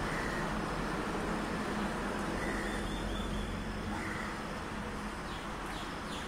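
Steady outdoor street background noise, a hum and hiss with no distinct event. A few faint, short, high chirps come near the end.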